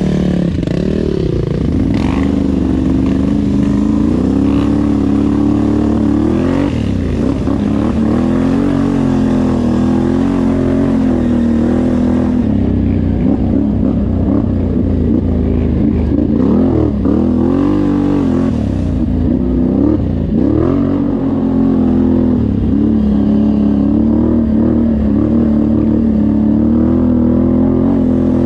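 Off-road vehicle engine running under throttle, its pitch rising and falling again and again as the throttle opens and closes.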